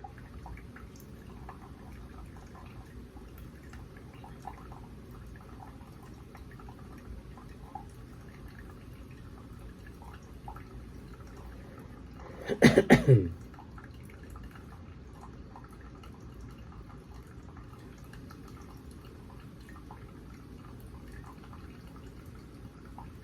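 Faint drips from a K-cup coffee brewer as it finishes a cup, over a low steady background. About halfway through, a person makes one short, loud vocal sound that falls in pitch.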